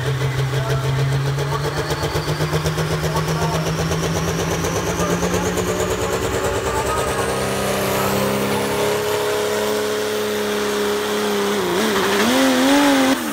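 Dodge Ram diesel pickup's engine running under full load as it drags a pulling sled, with a high whine climbing steadily in pitch. Near the end the engine speed wavers up and down.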